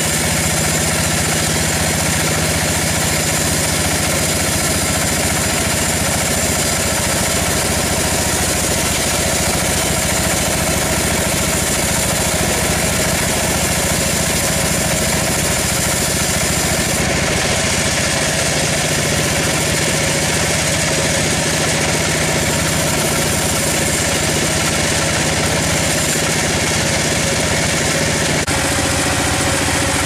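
Large band sawmill running steadily, its blade sawing lengthwise through a big log.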